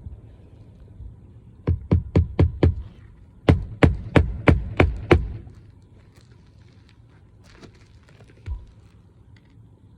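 Hammer driving roofing nails into an asphalt shingle: a run of five quick blows, then after a short pause six more, about four blows a second.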